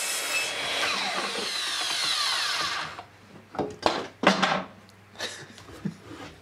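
Miter saw motor running, then spinning down with a falling whine that stops about three seconds in. A few sharp knocks follow as the board and saw are handled.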